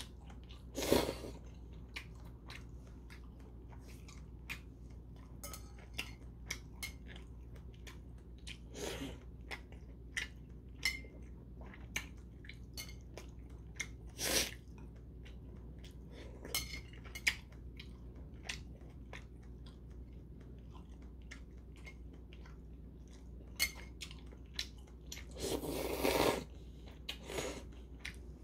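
Close-up eating sounds of a man eating spicy mixed noodles with whelks and shiitake mushrooms: chewing, a few noodle slurps (one about a second in, a longer one near the end), and scattered clicks of metal chopsticks against a ceramic bowl.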